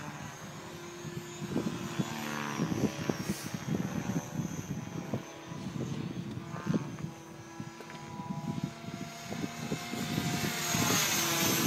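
T-Rex radio-controlled model helicopter flying overhead, its rotor and motor giving a steady pitched hum that shifts in pitch and grows louder near the end as it comes closer.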